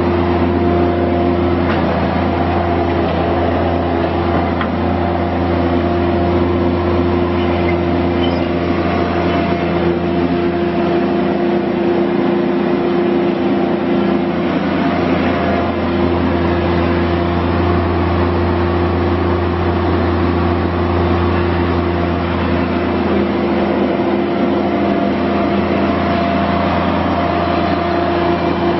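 Kubota diesel engine of a Toro TX 525 walk-behind mini track skid steer running steadily at an even speed, with a low hum.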